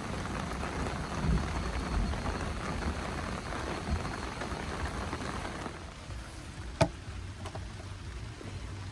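Heavy rain falling, a steady hiss that eases about six seconds in, followed shortly by a single sharp tap.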